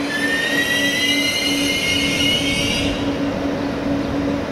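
Train running with a steady rumble and a high-pitched whine made of several tones that rise slightly for about three seconds, then cut off suddenly.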